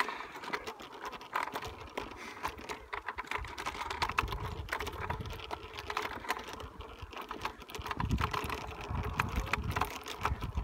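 Bicycle freewheel ticking in quick irregular clicks as the bike coasts, with wind rumbling on the microphone, heavier in the second half.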